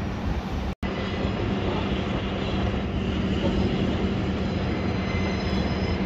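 Steady mechanical running noise with a constant low hum, cut off abruptly for a split second under a second in.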